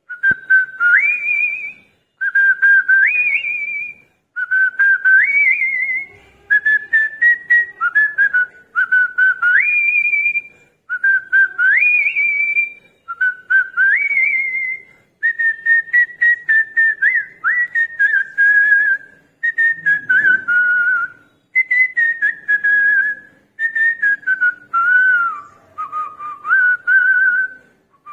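A person whistling a ringtone melody by mouth in phrases of about two seconds with short gaps between them. Each phrase is a run of quick repeated notes that steps up to a higher held note, and the later phrases wander lower.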